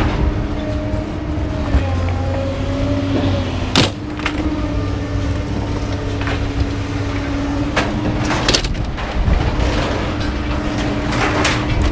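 Truck driving: steady engine and road rumble with a held whine, and several sharp knocks and rattles along the way.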